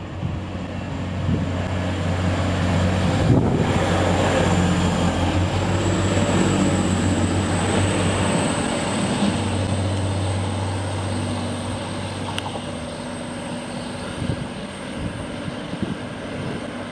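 Class 185 Desiro diesel multiple unit running past at the platform, its underfloor diesel engines giving a steady low hum with rail noise and a thin high whine. The sound swells as the train draws alongside, then eases off as it moves away.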